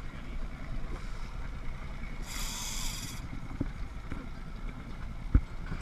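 Big-game lever-drag fishing reel whirring for about a second, with line running through it under a heavy fish, over a steady low rumble of wind and sea. A single sharp knock comes near the end.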